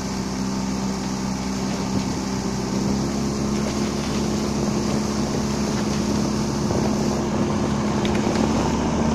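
Small outboard motor of a motorboat running at a steady speed, with a constant drone over water and wind noise.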